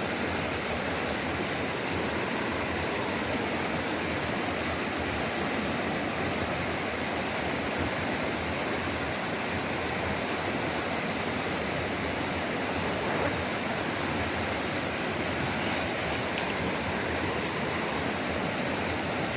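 Two-tier sliding waterfall, water running down over a sloping rock face in a steady, unbroken rush.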